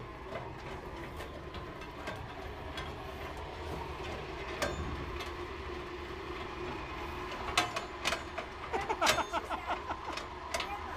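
Old ore-mill machinery running on an electric motor with belt and chain drives: a steady mechanical hum with several sharp clicks and knocks.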